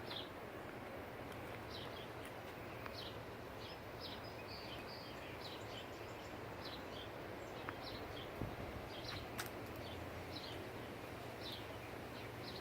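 Steady rushing wind of strong pre-storm winds, with a bird giving short high chirps every second or so. A faint low hum sits underneath from about three seconds in, and two sharp clicks come near the two-thirds mark.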